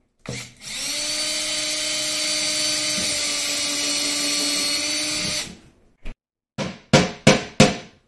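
Cordless drill boring a pilot hole through a plywood sheet, its motor running at a steady whine for about five seconds before it stops. Near the end come four quick, sharp knocks.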